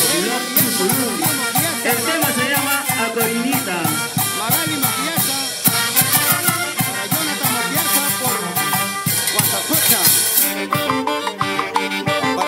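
Peruvian carnival music from a brass band-orchestra: trumpets and saxophones over congas and timbales, playing to a quick steady beat.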